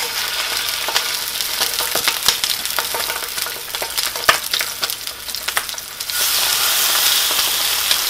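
Scored duck breasts frying skin side down in hot olive oil in a cast iron skillet: a steady sizzle with many sharp crackling pops. The sizzle grows louder about six seconds in, when a second breast goes into the pan.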